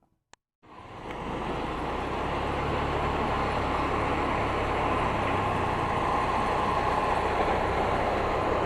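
Motorcycle engine running steadily while riding, under a constant rush of road and wind noise; it starts after a brief silence and a single click.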